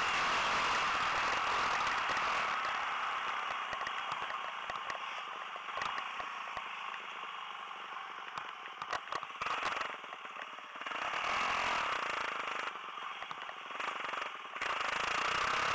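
Yamaha WR250 enduro motorcycle running on a dirt road, engine and wind noise steady. About three seconds in the engine and wind drop lower, with scattered clicks and rattles through the quieter stretch, and they rise again shortly before the end.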